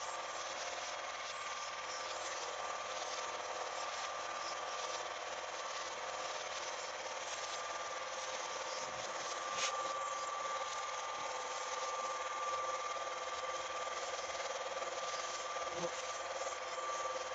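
Film projector running: a steady mechanical whirring clatter with a constant high tone, and a single sharp click about ten seconds in.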